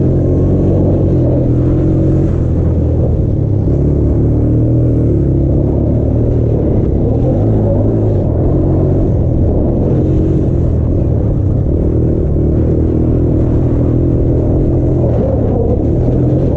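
Small single-cylinder off-road engine running up close under the onboard camera, its pitch rising and falling with the throttle through the turns of a dirt track.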